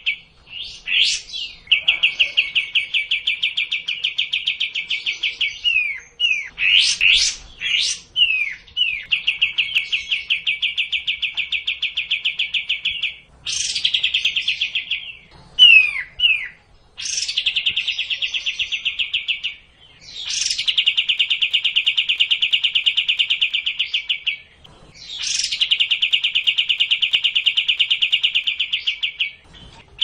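Kapas tembak bulbul song: about six long, fast trills of repeated notes, each lasting a few seconds. Between them come sharp high notes and short falling whistles.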